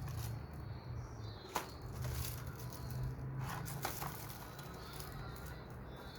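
Lamps and their packaging being handled: rustling and crinkling, with a few sharp clicks and knocks.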